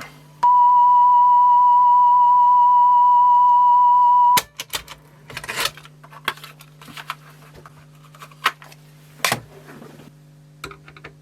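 A steady test tone played back from the Sony TC-WE305 cassette deck for about four seconds while its speed stability (wow) is checked after the belt replacement, cutting off with a click. A few clicks and knocks follow over a low steady hum.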